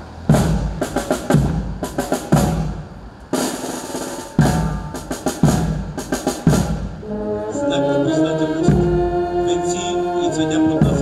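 Military brass band: drums strike a beat for the first several seconds, then the brass comes in playing sustained chords.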